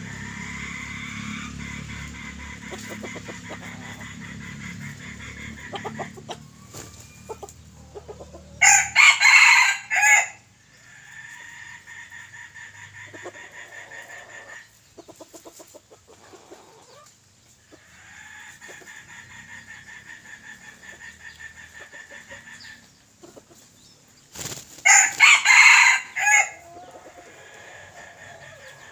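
Junglefowl roosters crowing twice, about nine seconds in and again about twenty-five seconds in, each crow short and loud. Between the crows there is soft clucking over a steady high buzz.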